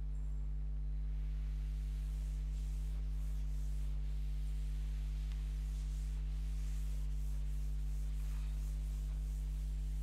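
Steady electrical mains hum with its overtones, with faint repeated swishing of a duster wiping chalk off a chalkboard.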